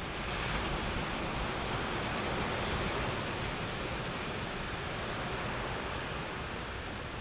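Surf washing up the beach: a steady rushing noise that swells over the first few seconds, then slowly eases.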